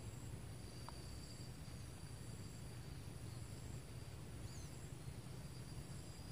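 Faint outdoor ambience: insects such as crickets keep up a steady high-pitched buzz over a low steady rumble, with a short bird chirp about four and a half seconds in.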